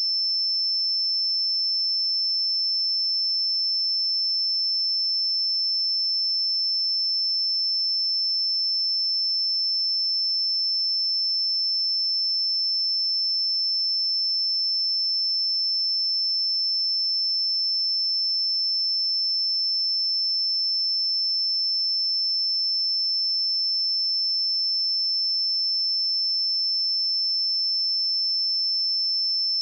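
A pure 5308 Hz sine-wave test tone, a single steady high-pitched note held at constant level without change.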